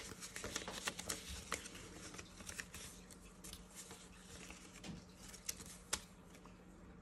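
Paper banknotes being handled and counted by hand: a run of quick, crisp rustles and flicks, busiest in the first few seconds, then thinning as the bills are slid into a plastic binder pocket.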